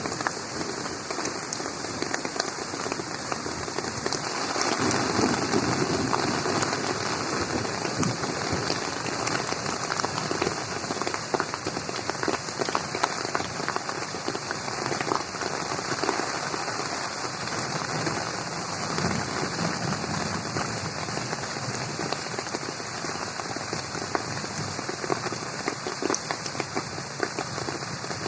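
Steady rain falling on a garden pond: a dense, even hiss of water with many sharp drop impacts close by.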